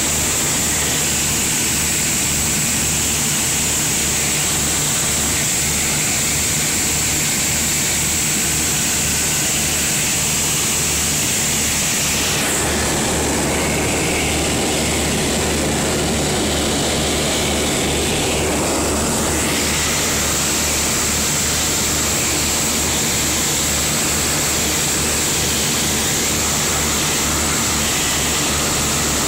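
Cabin drone of a Beechcraft BE-76 Duchess's twin four-cylinder Lycoming piston engines and propellers, heard from inside the cockpit: a steady low hum with a hiss over it. From about twelve to nineteen seconds in, a broader rushing noise swells over the hum, then falls back.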